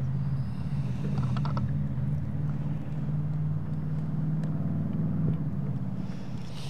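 An engine running steadily with a low, even hum, with a few short clicks about a second in.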